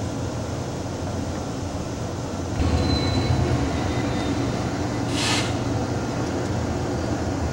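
A passenger train rolling over the rails, heard on board as a steady rumble. It gets louder suddenly about two and a half seconds in, with a faint thin wheel squeal just after, and a short hiss a little past halfway.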